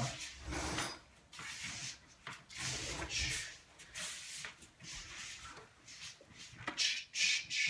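Spinning flow-prop hammers swishing through the air in repeated uneven whooshes, about one or two a second.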